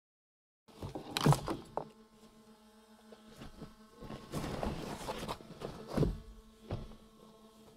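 Minivan rear hatch and cargo area being handled: a clatter of knocks as the hatch comes up, then rustling as gear is pulled out, and two sharp thumps near the end. A faint steady hum runs underneath.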